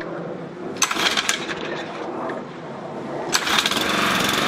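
Toro 20333 walk-behind mower's small single-cylinder engine running after being started, uneven, and louder about three seconds in. It is the engine of a mower that won't stay running, and a fresh air filter has not cured it.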